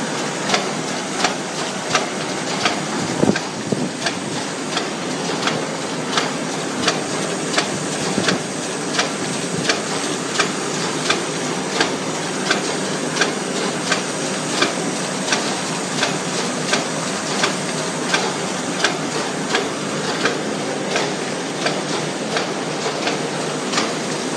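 ZKT-700B window patching machine running: a steady mechanical clatter with a sharp click repeating evenly, about one and a half times a second.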